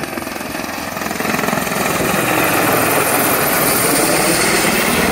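Single-rotor helicopter flying low overhead, its rotor chopping in a rapid, steady beat that grows louder about two seconds in.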